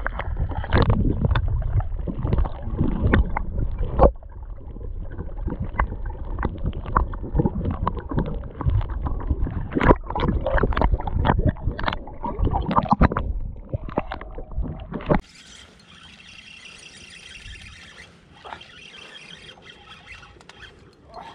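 Muffled water sloshing with many sharp knocks, heard through a camera held under the surface beside a pike being held in the water for release. About fifteen seconds in it cuts to a much quieter steady hiss.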